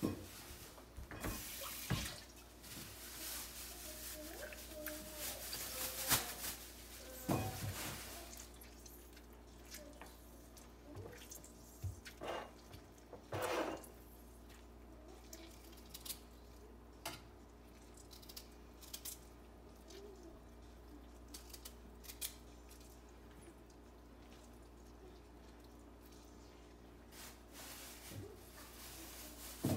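Kitchen handling sounds: scattered clicks, taps and knocks as ingredients are added to a glass blender jar, the loudest about six seconds in, over a faint steady hum.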